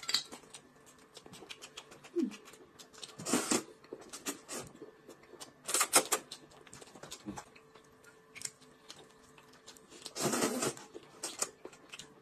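Noodles being slurped in three loud hissing bursts, with small clicks of chewing and chopsticks in between.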